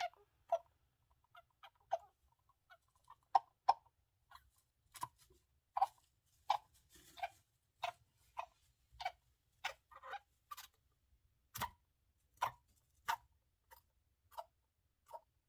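A sick hamster making short squeaky noises over and over, about one or two a second at an uneven pace. These are the sneezing, worrying noises of a hamster with a cold.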